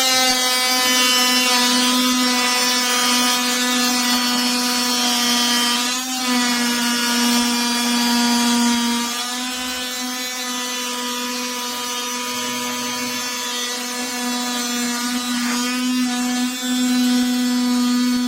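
KIMO 20V cordless oscillating multi-tool running at speed with a steady high hum, its blade cutting into an old wooden baseboard. It runs quieter for several seconds in the middle, then comes back up near the end.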